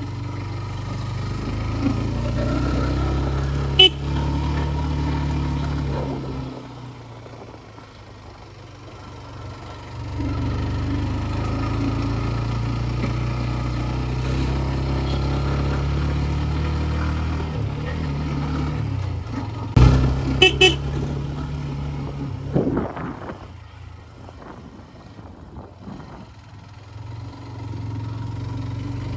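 Scooter riding with a steady low rumble of engine and wind that eases off twice. Short horn toots sound about four seconds in and again around twenty seconds in.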